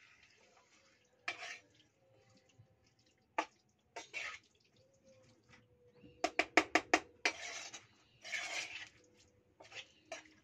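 Spoon scraping and knocking against a cooking pot while chicken is stirred: a few single strokes, then a quick run of about six knocks midway, followed by short scrapes.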